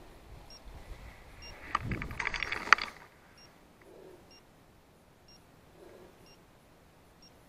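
About two seconds in, dry brush and leaf litter crackle and rustle, with twigs snapping and one sharp crack. Faint short electronic beeps repeat about once a second, like a hunting dog's beeper collar.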